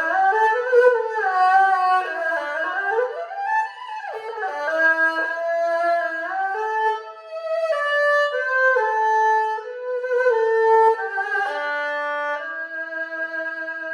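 Erhu, the two-stringed Chinese bowed fiddle, playing a short solo melody: wide sliding swoops in pitch over the first few seconds, then held notes stepping up and down, ending on a long held note.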